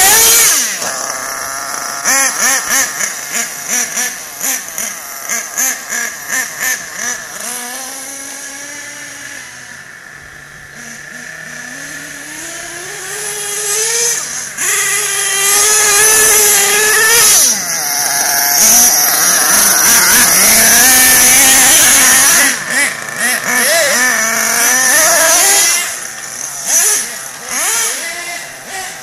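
Nitro RC monster truck engines, small glow-fuel two-strokes, revving as the trucks drive: a quick run of throttle blips in the first several seconds, a steadier lower stretch, then long high revs rising and falling in pitch.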